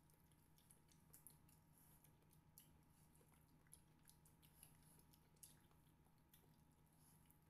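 Faint eating sounds of two people eating rice and pork with their hands: chewing with small irregular mouth clicks and smacks. A steady low hum runs underneath.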